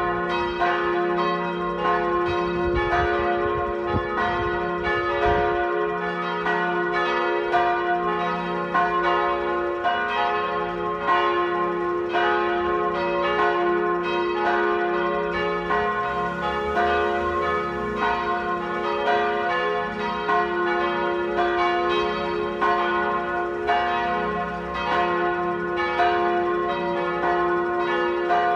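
Full peal of church tower bells: all the bells rung together, their strikes overlapping in no set order and each ringing on under the next.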